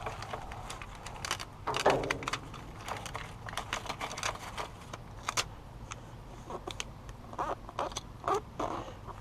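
Handling noise: scattered clicks, taps and knocks, with a few short squeaky blips near the end.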